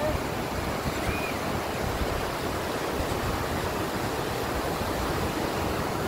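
Steady rushing of a mountain stream and waterfall, white water cascading over rocks.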